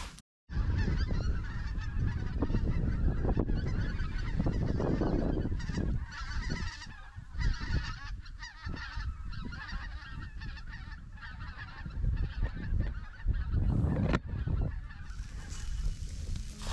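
A flock of geese honking.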